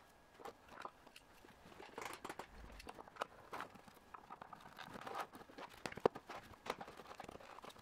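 Faint handling noise of a steel axle being fitted into a 3D-printed plastic frame: scattered light clicks, taps and rustles as the parts are moved and the frame is tilted, with the loudest knock about six seconds in.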